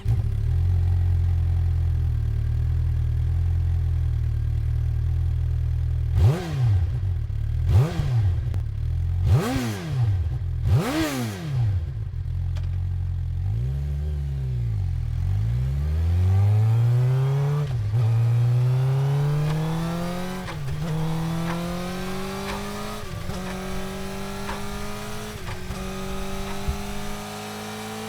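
Suzuki motorcycle engine idling, then blipped four times in quick rev-and-drop surges. After one longer rev it pulls away, climbing in pitch through several gear changes.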